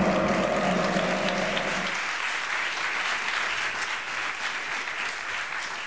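Audience applauding steadily. Several steady low tones sound under the clapping for about the first two seconds.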